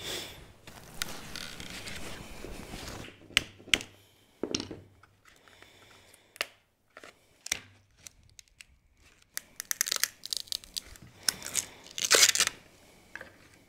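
A claw hammer and a wide scraper prying a cured epoxy laminate hinge out of its mold. It starts with a few seconds of scraping, then come scattered sharp taps and cracks, and near the end a louder run of cracking and tearing as the laminate breaks free.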